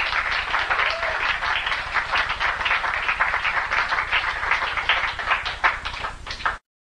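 Audience applauding, a dense run of hand claps that cuts off abruptly near the end.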